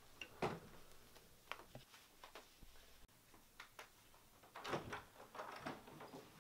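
Faint footsteps in socks on a wooden floor with scattered light knocks, then a cluster of clicks from a door knob and latch as a door is opened, a little past the middle.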